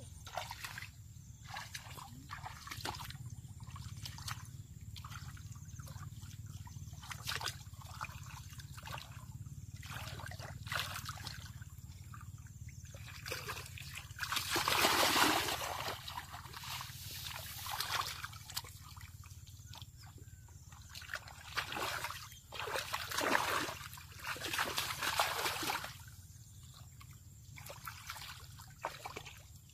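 Water splashing and sloshing in short irregular bouts, with trickling in between, as water is disturbed by hand during fishing. The splashing is loudest about halfway through and again a few seconds before the end.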